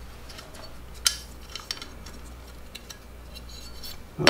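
Scattered small clicks and clinks of a timing chain guide and its plastic wear liner being handled as the liner is pulled off and swapped over, with one sharp click about a second in and a louder knock at the very end.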